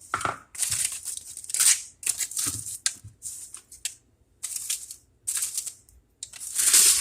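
A utensil scraping and lifting baked food off a foil-lined toaster oven pan, with the foil crinkling, in a string of short scrapes about one a second.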